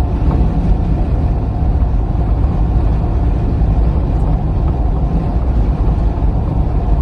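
Car driving, a steady low road and tyre rumble with no distinct knocks.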